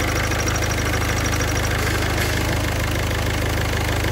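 Car engine idling with a rapid, high, cricket-like chirp that stops about a second and a half in. The chirp is taken for the clutch release bearing, whose balls are starting to wear.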